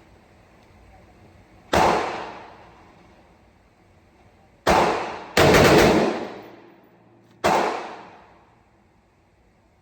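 Gunshots from an AR-15 pistol fired with a binary trigger. There is a single shot about two seconds in and another near five seconds, then a quick string of rapid shots, then one more shot about a second and a half later, each report trailing off in a ringing echo.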